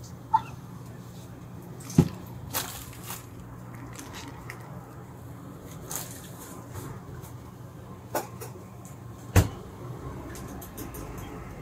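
Handling noises from crepe assembly at a counter: a few sharp knocks and clicks, the loudest about two seconds in and again about nine seconds in, over a steady low hum.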